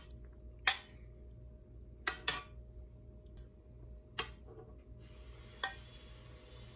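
Metal spoon clinking against a stainless steel pot, five short sharp clinks, while foam is skimmed off pork ribs boiling in water. A low steady hum runs underneath, and a soft hiss comes in about five seconds in.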